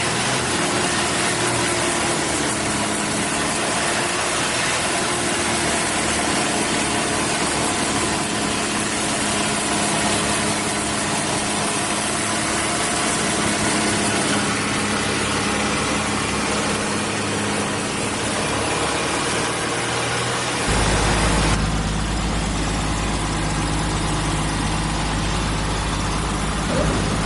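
Long-tail boat's V6 petrol car engine running steadily, with a rushing hiss of water and air over it. About 21 s in the sound changes: a heavy low rumble comes in and the hiss eases.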